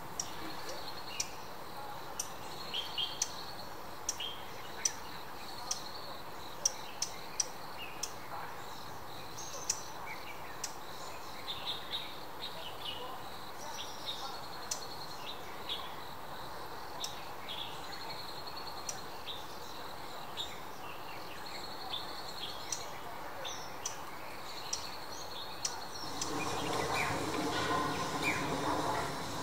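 Dusky warbler calling a hard, clicking 'tack' again and again at irregular intervals, with softer high chirps between. About three seconds before the end, a louder steady outdoor background noise comes in.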